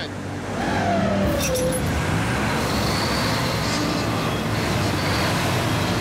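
Diesel engines of wheel loaders working under load as they drag a boat up a ramp on chains; the engine noise swells about half a second in and then holds steady.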